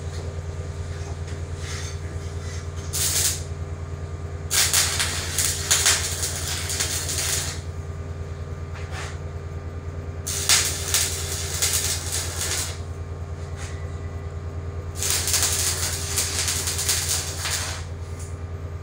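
Electric arc welding: the arc crackles and sizzles in four runs, a short one about three seconds in and then three lasting two to three seconds each, over a steady low hum.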